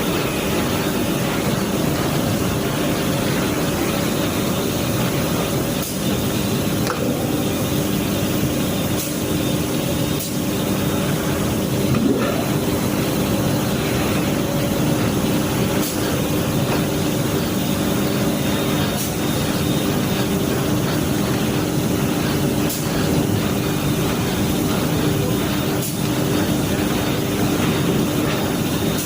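Washing machine running, a steady motor hum with a constant low tone over an even mechanical rumble.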